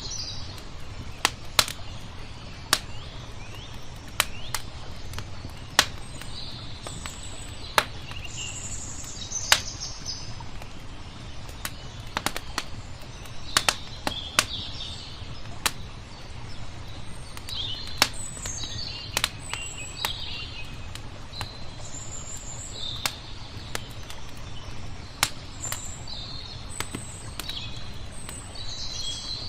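Wood fire crackling, with sharp irregular pops every second or so, while small birds chirp and twitter. A steady low rush of water runs beneath.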